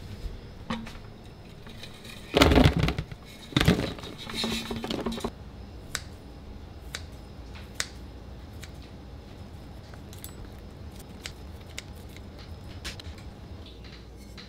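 Kitchen food-prep handling noise: two spells of louder rustling and clatter a few seconds in, then scattered light clicks and snips as kitchen scissors cut cooked chicken into a plastic container.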